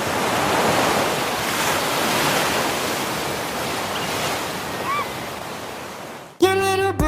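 Ocean surf washing steadily, with one short rising-and-falling bird call about five seconds in. Near the end, music with held chords starts suddenly.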